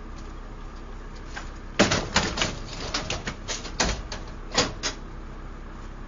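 Ambulance gurney being slid and handled in the back of an ambulance: a run of clunks and clicks lasting about three seconds, the loudest near its start, over a steady low engine hum.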